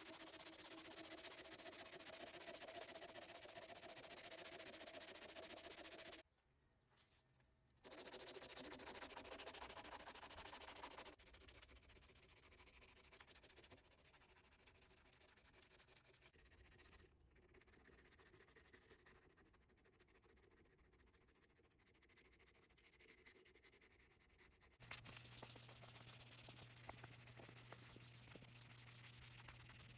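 Faint rubbing and scraping of hand finishing work on the knife, heard in several short segments that start and stop abruptly. A low steady hum comes in near the end.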